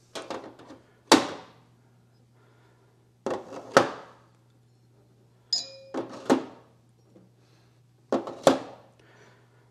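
Steel R8 collets being set one after another into the holes of a 3D-printed PLA collet rack. Each drop gives a short rattle and then a sharp clack, about four times over. A faint steady low hum runs underneath.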